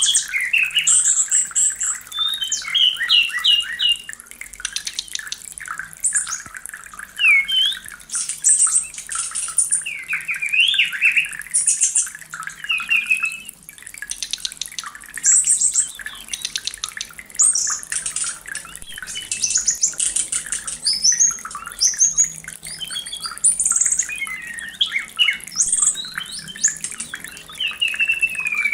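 White-rumped shama in breeding condition singing a long, varied song of rich whistles, sliding notes and fast chattering trills, phrase after phrase with short breaks.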